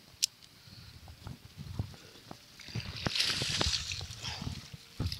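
A hooked giant snakehead (toman) splashing and thrashing in the water at the bank, loudest about three seconds in, with scattered knocks and rustles of handling in the grass.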